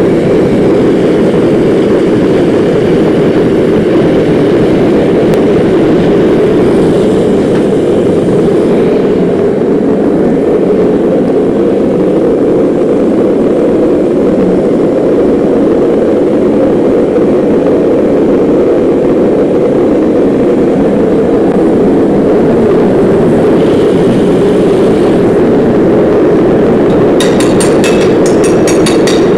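Gas forge burner running at full flame, a loud steady rushing roar of gas burning inside the lit forge. A quick run of sharp clicks near the end.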